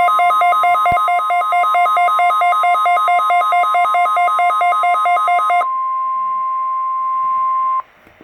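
NOAA Weather Radio warning alarm tone, a steady 1050 Hz tone sounding for a required weekly test. For the first five and a half seconds a buzzy electronic alarm beeping rapidly between two pitches sounds over it; then the steady tone goes on alone and cuts off suddenly near the end.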